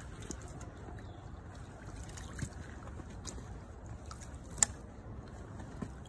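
Footsteps over rocks with a low wind rumble on the microphone, scattered small knocks, and one sharp click a little past halfway.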